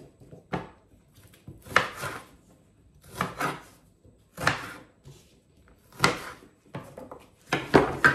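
Chef's knife cutting shallots coarsely on a wooden cutting board: about six separate knocks of the blade on the board, roughly one every second and a half, with a louder knock near the end.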